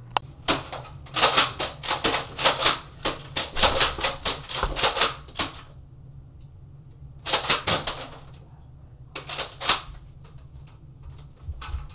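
A rapid run of sharp clicks and taps, about four or five a second, for about five seconds, then two short clusters of clicks a couple of seconds apart.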